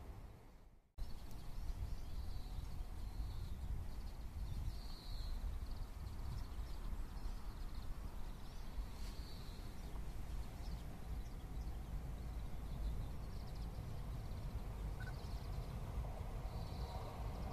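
Outdoor ambience with short, high bird chirps repeating every second or two over a low, steady wind rumble on the microphone. The sound drops out almost completely for about the first second.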